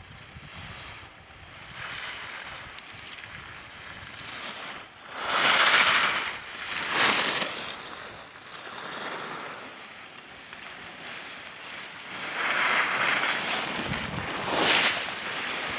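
Skis carving turns on snow: a rush of scraping snow swells and fades with each turn, loudest about five to seven seconds in and again near the end, over wind noise on the microphone.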